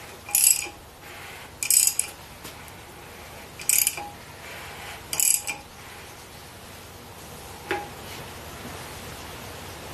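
Socket ratchet on a Ford 460 big-block's crankshaft bolt clicking in four short bursts, about a second and a half apart, as the handle is swung back between strokes to turn the crank by hand. A single light metallic click follows near the end.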